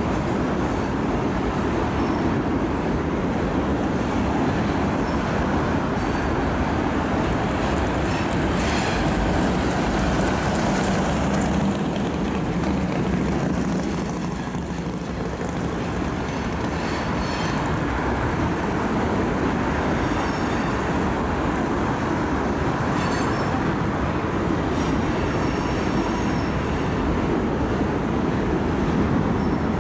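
Railroad cars rolling past on the rails in a steady, continuous rumble, with faint high wheel squeals now and then.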